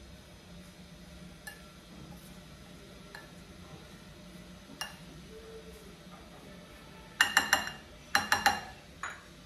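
Spoon stirring a thick flour-and-chopped-spinach mixture in a glass bowl: a few faint scattered clicks, then two quick runs of sharp clinks of the spoon against the glass about seven and eight seconds in, and one more just after.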